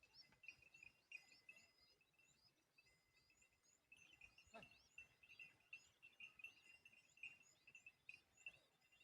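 Faint chirping of small birds: many short, high chirps in quick succession over a steady high-pitched insect-like drone, with a single soft knock about halfway through.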